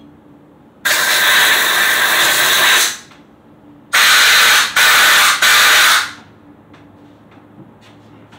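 Compressed-air blowgun blowing air through the small holes of a brake master cylinder to clear out debris after cleaning: one long hissing blast of about two seconds, then three short blasts in quick succession.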